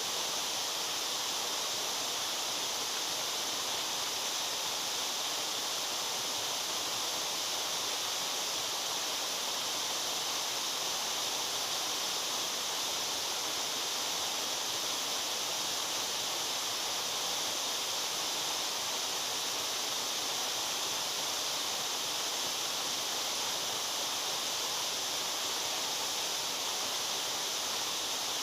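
A waterfall pouring steadily: a constant, even hiss of falling and splashing water, with most of its energy high up.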